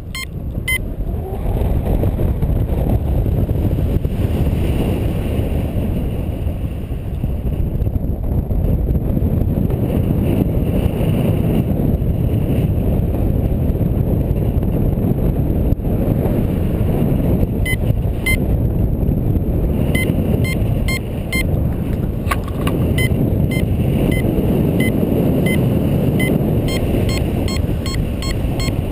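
Steady rush of airflow over the microphone in paraglider flight. From a little past halfway, a flight variometer sounds quick repeated short beeps, the climb tone that signals the glider rising in lift.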